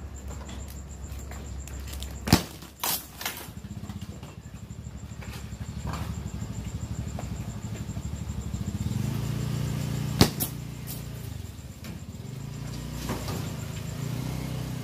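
Plastic strapping bands on a bale of used clothing being cut and pulled loose, with sharp snaps about two seconds in, a couple just after, and another near ten seconds. Under them is a steady low hum.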